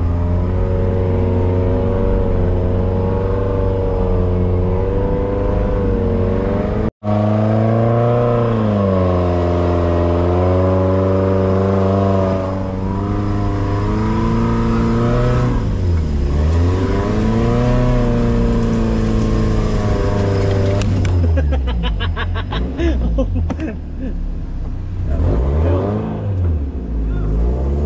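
Suzuki Jimny off-road 4x4's engine heard from inside the cabin, running hard at low speed up an uphill obstacle, its revs repeatedly rising and falling. The revs swing up and down more quickly near the end, and the sound cuts out for an instant about seven seconds in.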